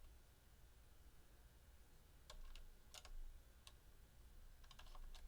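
Faint, scattered clicks and taps of small hardware and tools being handled while fitting a part to an electric guitar: a couple of clicks about two seconds in, a sharper one around three seconds, and a quick cluster near the end.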